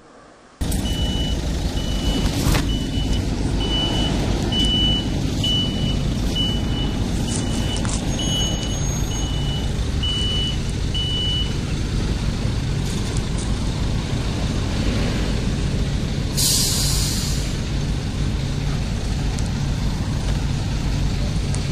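Flatbed recovery truck's diesel engine running close by, its reversing alarm beeping steadily, a high beep about every three-quarters of a second, until about halfway through. A short hiss of air comes a few seconds later.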